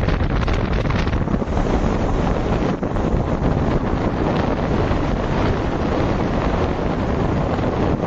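Loud wind buffeting the microphone of a moving car, a dense low rushing noise.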